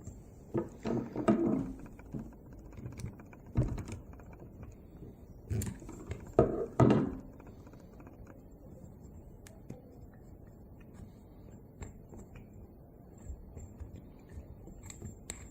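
Small hand tools and metal engine parts clicking and knocking as a model diesel engine is taken apart by hand: a few short clusters of clatter in the first half, then only scattered light ticks.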